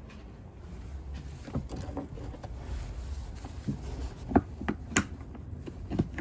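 Irregular clicks and knocks of hands working the lock nut on an O-Cedar EasyWring spin mop bucket's spin shaft, with a few sharper knocks in the second half over a low rumble.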